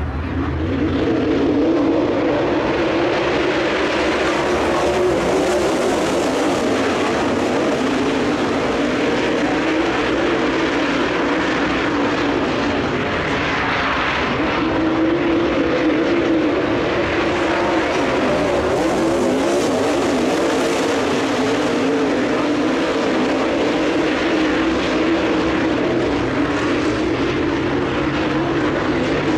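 A field of dirt late model race cars racing on a dirt oval, their V8 engines running hard in a continuous drone that swells as cars pass.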